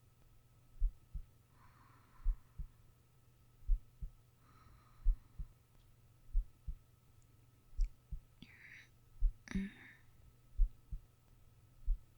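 A sleeping person's heartbeat: slow, soft lub-dub pairs about every one and a half seconds. Soft breaths come in between, and two louder breathy noises sound near the end, the second with a sharp thump. A faint steady high hum runs underneath.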